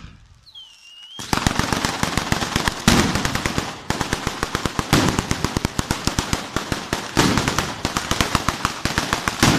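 Ground-level firecracker battery (batteria) going off in a rapid, dense string of sharp bangs that starts about a second in, with heavier bangs standing out every couple of seconds.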